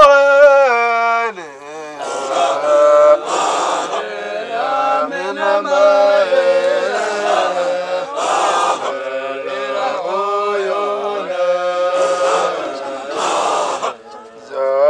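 A group of men chanting a Qadiriya Sufi dhikr in a melodic chant with long held notes, broken every few seconds by short noisy bursts.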